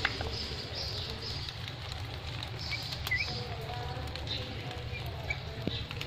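Rose-ringed parakeets giving a few faint, short rising chirps over a steady low rumble.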